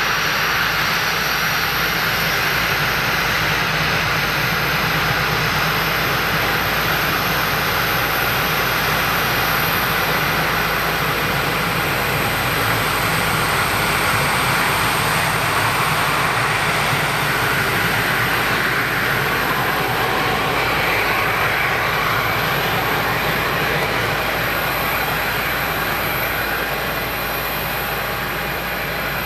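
Gulfstream G550 business jet's twin Rolls-Royce BR710 turbofans running, a steady loud jet noise that eases slightly near the end.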